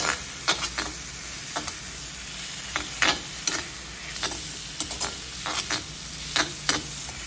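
A perforated metal ladle scraping and knocking against a kadai as vegetables in masala are stirred and sautéed, with irregular sharp clinks over a faint steady sizzle.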